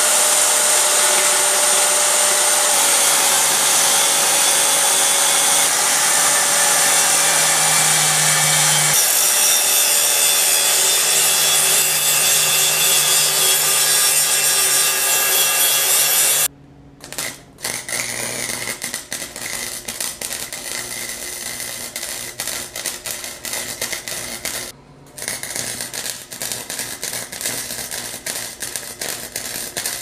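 Electric angle grinder running under load as it cuts the bolt tabs off a steel exhaust header, a steady loud whine that sags in pitch in places, for about the first half. After a short break, a Harbor Freight wire-feed welder crackles steadily as it welds the header joint, stopping briefly once partway through.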